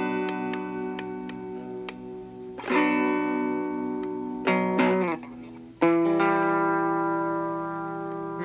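1964 Fender Telecaster electric guitar played through an amp: chords struck a few seconds apart and left to ring out, with a quick pair of strums in the middle. The newly wired control panel gives no crackle or shorting noise.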